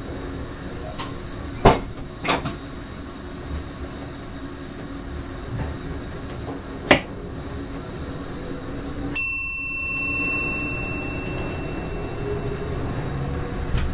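Electric train running along the track, heard from the driver's cab: a steady running rumble broken by a few sharp clicks, the loudest about two seconds in and again about seven seconds in. About nine seconds in, a sudden ringing tone starts and fades out over a second or two.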